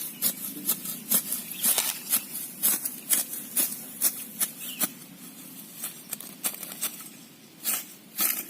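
Footsteps of people walking, a short sharp step about two to three times a second.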